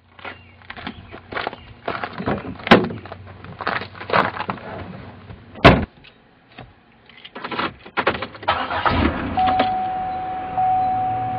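A run of irregular clicks, rattles and knocks, two of them sharp and loud, followed by a steady high tone that starts about nine seconds in.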